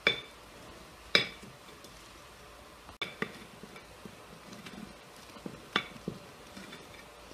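Kitchen utensils and dishes clinking: several sharp, ringing clinks, loudest at the start and about a second in, with smaller ones later.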